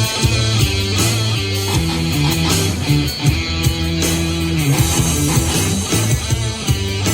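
Rock music with guitar, a bass line and a steady beat, played back through a portable Bluetooth speaker for a sound-quality test.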